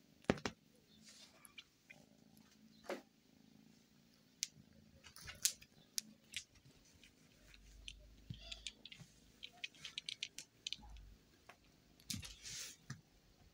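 A kitten playing with a wire-spring cat toy on a quilt: scattered light ticks and soft rustles, with a louder rustle near the end.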